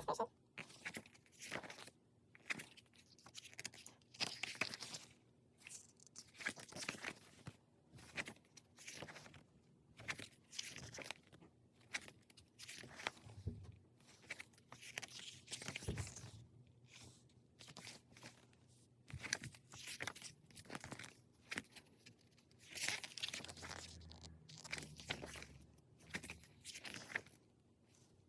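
Hands handling a K-pop album's packaging and inclusions: irregular rustling, crinkling and light taps of paper and plastic, with a few soft low thumps.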